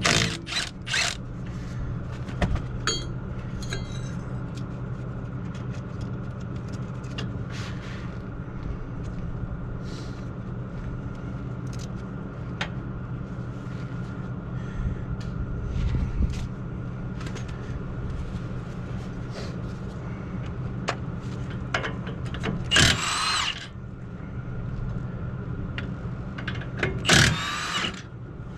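A cordless power tool runs in two short bursts, one about three-quarters of the way through and another near the end, backing out the front brake caliper bolts on a truck. Scattered clinks of metal parts and a steady low hum run underneath.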